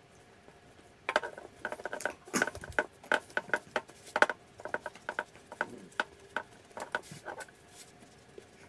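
Hands pressing and patting a ball of stiff dough flat on a floured silicone baking mat: irregular light taps and crackles, several a second, beginning about a second in.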